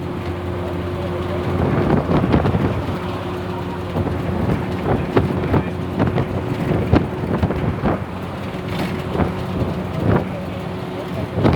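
Tamil Nadu government bus underway: the engine runs with a steady drone while the body and fittings rattle and knock in frequent sharp clatters.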